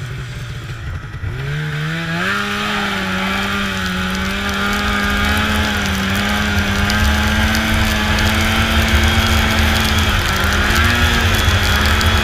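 Snowmobile engine speeding up about a second in, then running steadily at speed with small changes in pitch.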